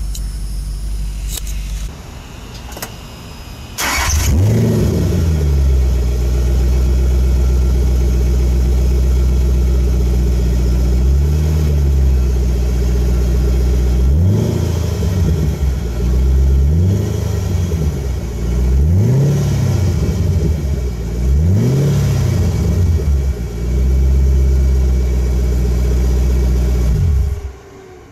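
2009 Mustang GT's 4.6-litre V8, fitted with a freshly installed Ford Racing cold air intake and Bama tune, starting up about four seconds in, idling, and revved in several short throttle blips before being shut off near the end.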